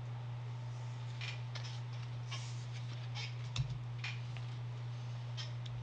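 Soft clicks and rustles of a stack of Pokémon trading cards being handled and set aside, with one small knock about three and a half seconds in, over a steady low hum.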